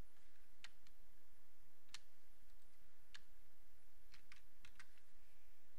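Scattered clicks of a computer mouse and keyboard keys while a web login form is filled in: about eight separate sharp clicks, a few in quick succession near the end.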